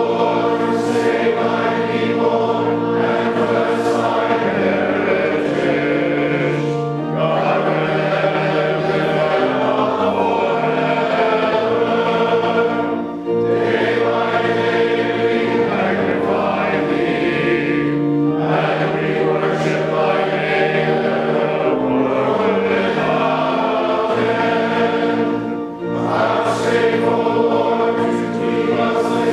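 Choir singing church music in long sustained phrases, with brief breaks between lines.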